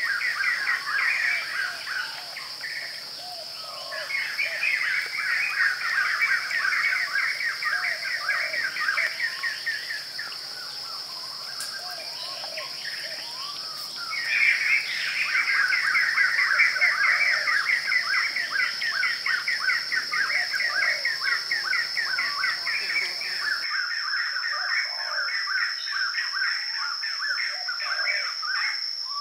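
Outdoor nature ambience: birds chirping in long runs of fast, repeated notes with short pauses, over a steady high-pitched insect drone.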